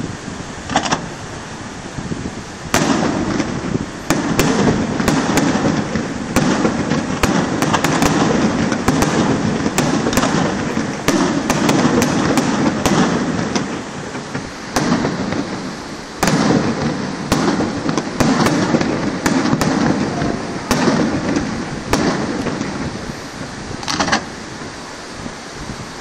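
Aerial fireworks display: many sharp bangs and crackles in quick succession over a continuous low rumble of bursts. It builds about three seconds in and thins out near the end, with a last lone bang about two seconds before the end.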